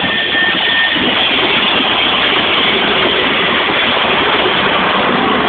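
Steam locomotive Black Prince, a BR Standard Class 9F, rolling into the station close past the platform: a steady, loud wash of steam and running-gear noise.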